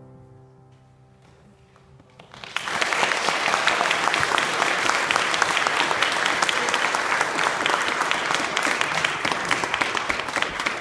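The last chord of the music fades away, then audience applause breaks out about two and a half seconds in and carries on steadily.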